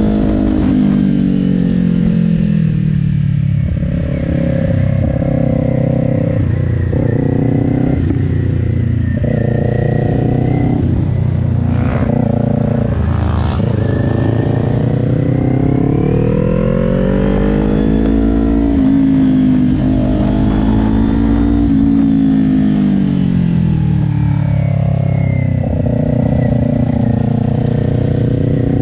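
Kawasaki Ninja 400's parallel-twin engine heard from on board, its pitch rising and falling with the throttle as the bike is ridden round a twisty track. The changes are short and quick in the first half and become longer, smoother rises and falls later.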